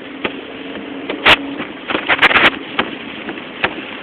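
Car driving in hurricane rain, heard from inside the cabin: steady road and rain noise with a low hum, broken by irregular sharp taps. A loud knock comes about a second in, and a quick cluster of knocks follows about two seconds in.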